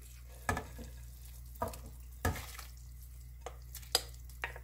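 Seasoned radish greens and cabbage leaves being tipped from a bowl into a pot of boiling broth. There are a few scattered knocks and wet plops, about six in all, over a steady low hum.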